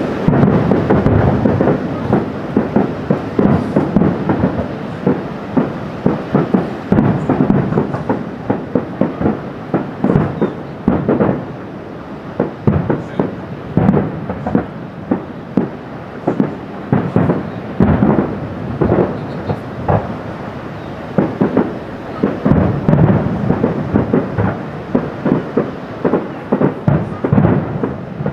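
Distant fireworks display: a steady run of shell bursts, many bangs in quick succession over a continuous low rumble of echoing booms.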